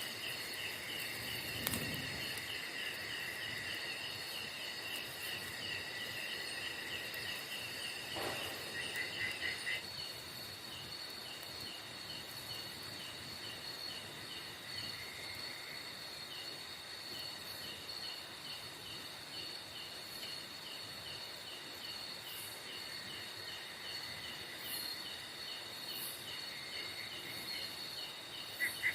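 Night insects, crickets among them, chirring steadily in several overlapping high pulsing trills. A single sharp click comes about two seconds in.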